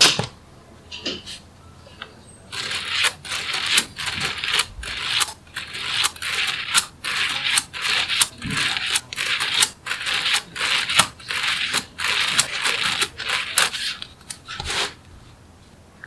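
Small metal magnetic balls clicking and rattling together in quick repeated bursts, about two a second.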